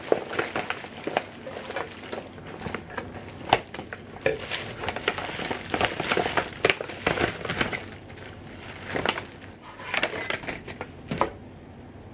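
Plastic flower-bouquet wrapping crinkling and crackling as hands pull it open and peel it off a bundle of roses, in irregular bursts with a short lull, stopping about eleven seconds in.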